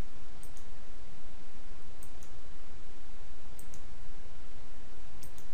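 Computer mouse button clicking, a press and release in quick pairs about every second and a half, as the slides are stepped through. Underneath is a steady microphone hiss with a low hum.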